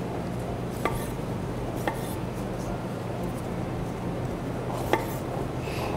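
Knife cutting on a cutting board, knocking a few times at irregular intervals as cherry tomatoes and spring onions are cut, under a steady low hum.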